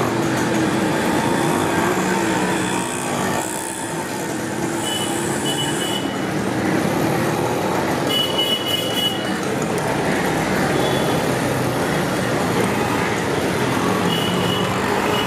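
Steady street traffic noise of passing vehicles, with a few short high beeps.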